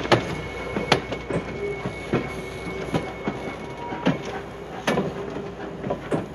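Wooden passenger coaches rolling away over jointed track, their wheels clacking irregularly over the rail joints on a steady rumble. A thin, steady wheel squeal runs under the clacks through the first few seconds.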